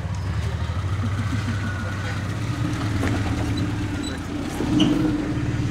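Suzuki Vitara's engine running steadily at low revs as the 4x4 crawls over a steep bank, picking up slightly near the end.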